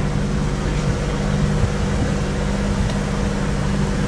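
Tour boat's motor running steadily under way, a constant low hum.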